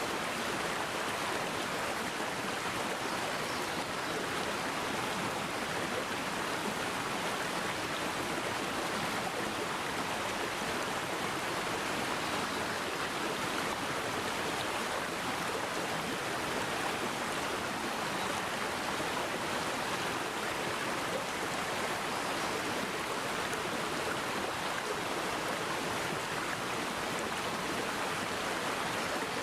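Mountain valley stream flowing steadily, an even rushing of water with no change in level.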